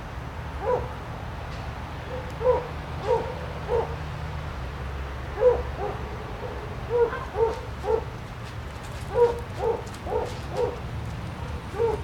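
A dog barking repeatedly in irregular bouts of two to four short, clear barks.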